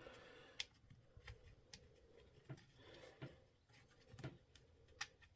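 Faint, irregular clicks and light scraping of a small metal part and the plastic housing of a cordless rotary hammer being handled and fitted together by hand.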